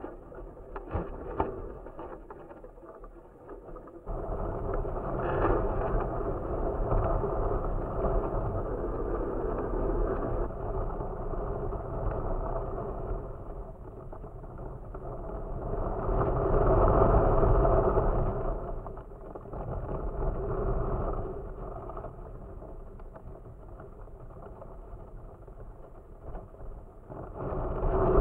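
Wind buffeting the camera microphone, a rumbling rush that swells and fades with the gusts. It is faint with a few clicks at first, then comes in suddenly about four seconds in.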